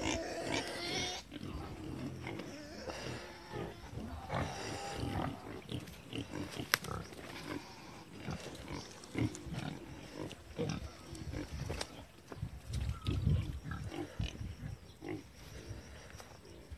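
Pigs grunting, loudest in the first second or so, then quieter, scattered grunts. A single sharp click about seven seconds in.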